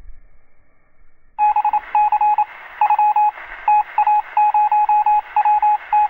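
Among Us ejection-screen text sound effect: rapid electronic beeps, one per letter as the line types out, in quick uneven clusters. It starts about a second and a half in.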